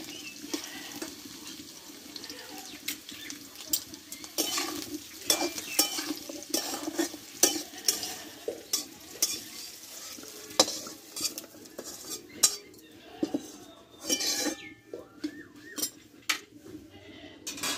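Long metal spatula scraping and clanking against a steel karahi, many quick strokes, as mixed vegetables are stirred in hot oil with a faint sizzle. Near the end the spatula scoops the vegetables out onto a steel plate with metal-on-metal clinks.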